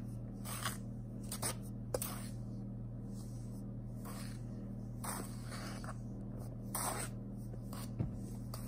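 A black plastic measuring cup stirring dry flour in a stainless steel bowl: soft, irregular scraping swishes over a steady low hum.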